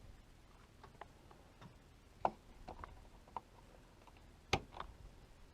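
Scattered faint clicks and light knocks at an irregular pace, the two sharpest about two seconds and four and a half seconds in, with a small room's faint background.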